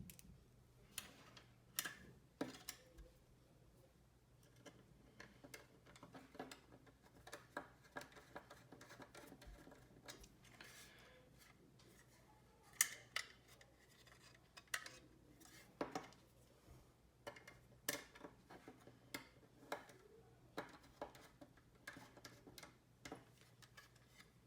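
Faint, irregular clicks and taps of a screwdriver and small screws and plastic parts as laptop components are screwed and fitted back in place.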